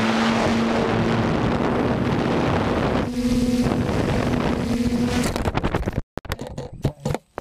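Small quadcopter drone's propellers humming steadily under heavy wind noise on the microphone; near the end the sound breaks up into sudden gaps and a few sharp knocks.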